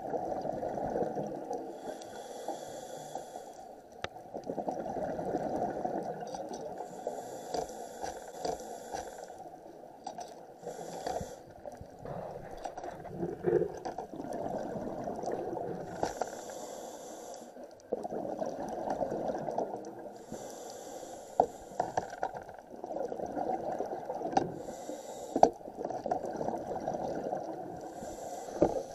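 Scuba diver breathing through a regulator underwater, muffled: a breath every four or five seconds with a hissing, bubbling rush of exhaled air, over a constant low underwater rumble, with a few sharp clicks.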